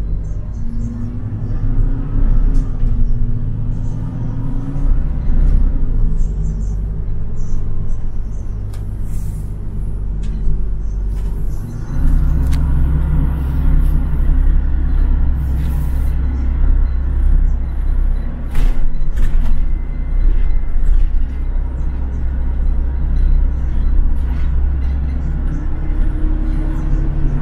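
Interior of a moving city bus: steady low engine and road rumble, with the engine's pitch rising and falling and the rumble growing louder about twelve seconds in. Short hisses and rattles come now and then.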